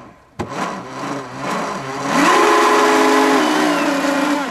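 Brushless electric motor of an RC hydroplane spinning its propeller in open air out of the water: a sharp click just under half a second in, a quieter whir, then from about two seconds in a loud steady whine that steps down in pitch and fades near the end.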